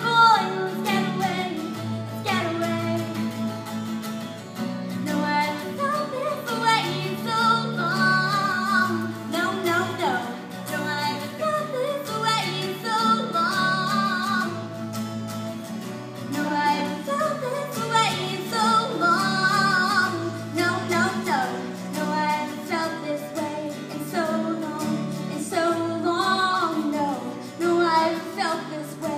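A woman singing an original song live, her melody wavering over held low chords of instrumental accompaniment that change every couple of seconds.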